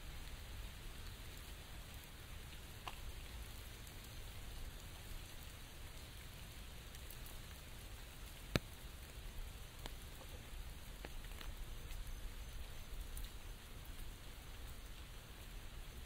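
Rain falling on an umbrella: a steady hiss with scattered drop taps, and one sharp, louder tap about halfway through.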